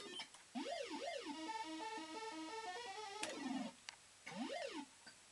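Barcrest Super Line Up fruit machine playing its electronic sound effects: quick up-and-down pitch sweeps, then a run of stepped beeping tones. There is a sharp click a little over three seconds in, then a falling sweep and one more up-and-down sweep near the end.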